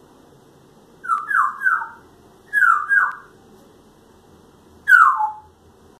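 Pet parrot whistling short falling notes: three in quick succession about a second in, two more just after, and a single one near the end.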